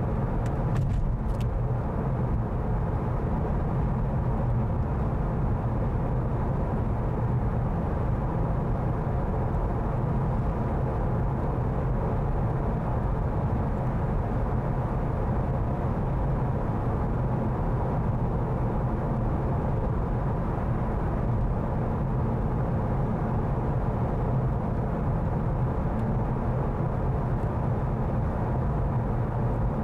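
Steady road and engine rumble of a moving car, heard from inside the cabin, with a couple of faint ticks about a second in.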